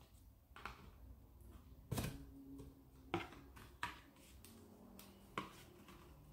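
Scissors cutting cardboard that is hard to cut: about five separate sharp snips at uneven intervals, the loudest about two seconds in.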